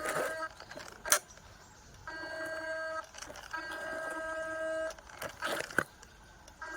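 Small electric motors of a remote-control toy excavator whining in steady runs about a second long, with a couple of sharp clicks in between.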